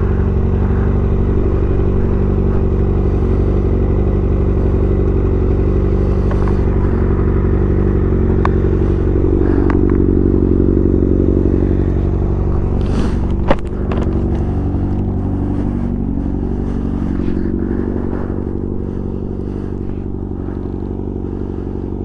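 A 2023 Kawasaki ZX-6R's inline-four engine idling steadily. There is one sharp click about thirteen seconds in.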